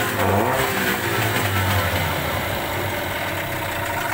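ALLFA CG 9.9/15 outboard motor running in a water test tank with its cowling off. Its speed swings briefly near the start, then settles to a steady run.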